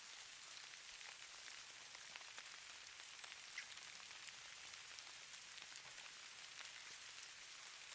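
Snow falling: a faint, steady hiss with light, scattered ticks of flakes landing.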